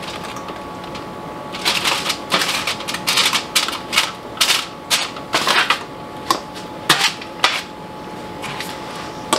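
Aluminium foil crinkling as cooked potato cubes are shaken out of a foil packet into a skillet, with irregular taps and clatters of the pieces and foil against the pan for about six seconds. A faint steady hum runs underneath.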